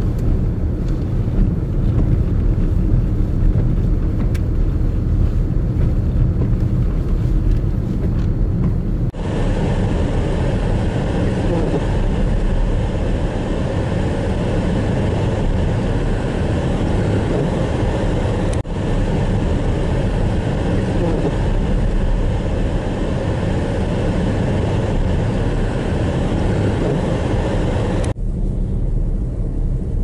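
Steady, loud low roar of vehicle and wind noise on a snowbound highway in a blizzard. The sound changes abruptly three times where the footage is cut.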